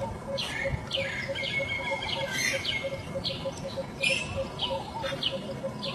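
Short, high-pitched chirping calls repeated about twice a second, each falling away quickly, over a faint, fast, even pulsing.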